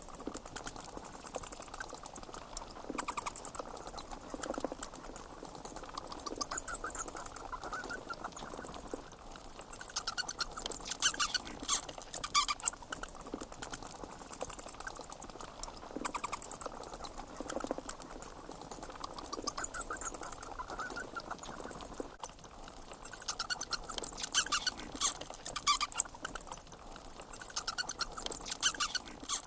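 Bats squeaking: rapid trains of high, thin chirps come in irregular bursts about every second or so, overlapping into a continuous chatter.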